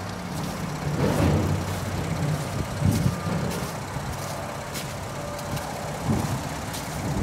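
Engine idling steadily, with a few louder bumps of wind or handling on the microphone about one and three seconds in.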